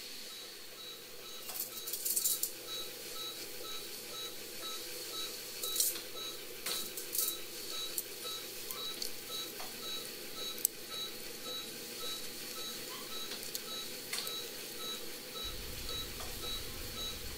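Light metallic clicks and clinks of steel surgical instruments being picked up and handled, a few sharp ones scattered through. Under them, a patient monitor gives a short, soft beep about twice a second, in step with the anesthetized cat's heartbeat.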